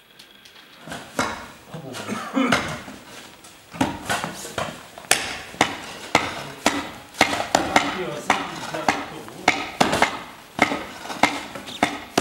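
Repeated hard strikes, about two a second, settling into a steady rhythm about four seconds in after a few scattered knocks.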